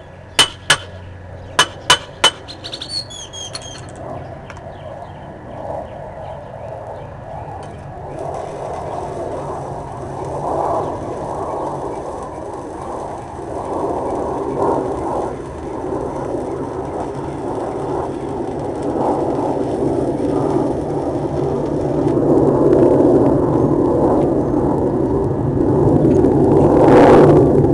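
A few sharp metallic clinks, then the crackling hiss of a stick-welding (SMAW) arc from a DC inverter welder burning an electrode on a steel bar, growing louder over the run.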